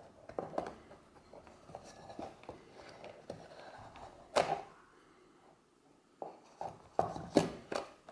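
Handling noise of accessories in a stiff leather camera case: a strap and a metal lens hood rustling and knocking against the case. There is one sharp knock about four seconds in and a quick run of knocks near the end.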